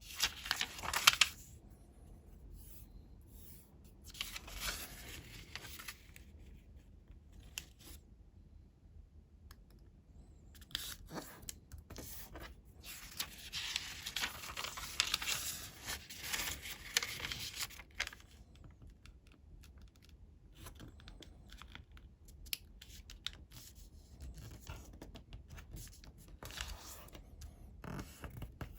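A sheet of coloured origami paper being handled, folded and creased, making irregular rustling and crinkling. A sharp crackle comes about a second in, and a longer run of rustling falls in the middle.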